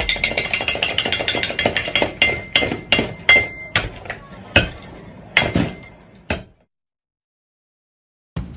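Hard candy being cut from a candy rope, pieces clicking and clinking onto a heap of candy in a metal tray: fast dense clicking at first, then slowing to separate sharp clicks about two a second, with a thin steady whine that stops a little over halfway. The sound cuts off suddenly after about six and a half seconds.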